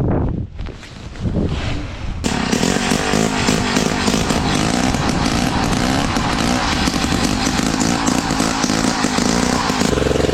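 Gas-powered ice auger engine revving up about two seconds in and running hard while drilling through the ice, then dropping back to a steady idle near the end.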